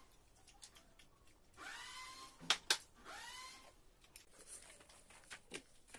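Glassware clinking sharply twice against a glass tabletop as a glass serving bowl is handled, with three short high squeaky tones around the clinks and a few faint taps afterwards.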